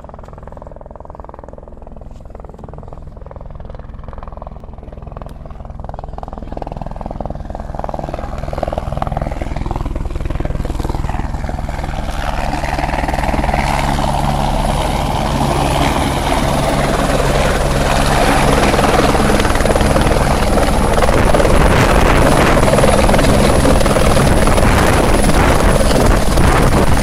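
Helicopter approaching and landing: a rotor beat that grows steadily louder for about fourteen seconds, then stays loud and close, with a thin high turbine whine coming in about halfway.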